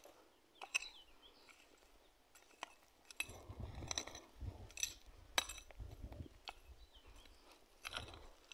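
A hand hoe's metal blade chopping into dry, stony soil: about eight sharp clinks as it strikes stones and clods, irregular and roughly a second apart, with duller thuds and crunching of earth between them.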